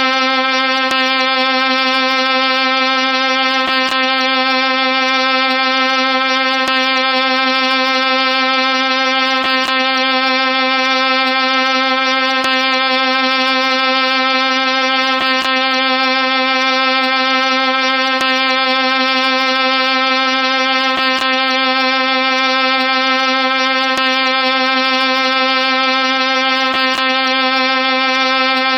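A loud, steady electronic tone held at one pitch, buzzy and rich in overtones, that never changes. A faint click repeats about every three seconds, where the sound effect loops.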